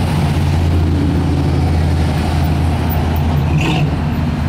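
A 1956 Chevrolet's engine rumbling steadily as the car cruises slowly past. There is a brief high chirp about three and a half seconds in.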